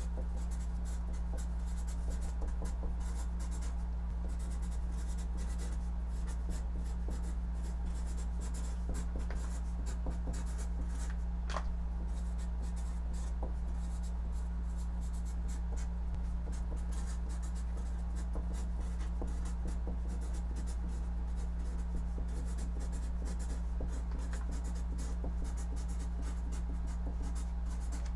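Marker pen writing on a large paper chart on a wall: a quick, uneven run of short scratchy strokes as words are written. A steady low hum runs underneath.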